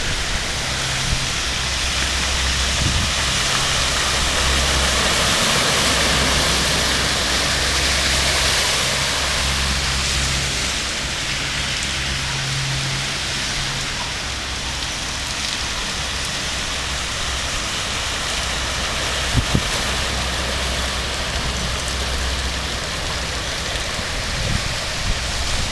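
Steady hiss of rushing water after rain, with a low rumble coming and going underneath.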